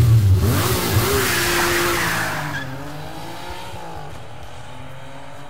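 The end of a hip-hop accordion remix: a loud noisy crash with heavy bass and sliding, bending pitches, then held wavering tones slowly fading out.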